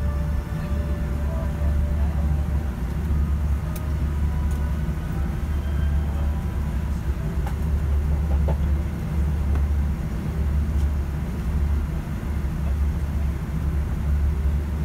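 Steady low cabin drone of a Boeing 787-9 airliner in cruise flight.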